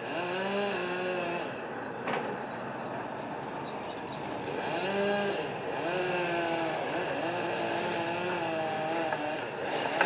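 Gas chainsaw revving up and down in uneven surges as it cuts through the trunk of a tree being felled. There is one sharp click about two seconds in.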